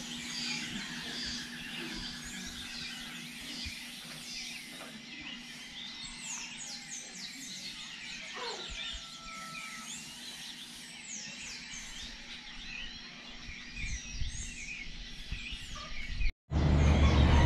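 A chorus of many rainforest birds calling at dusk: a dense mix of short chirps and quick falling whistles. About a second before the end, a brief dropout is followed by a louder low rumble.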